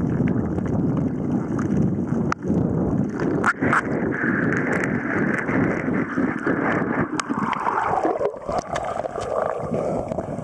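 Water rushing and rumbling against an underwater camera during a freediver's ascent, with scattered clicks. A wavering whine comes in partway through and drops in pitch toward the end, as the camera breaks the surface.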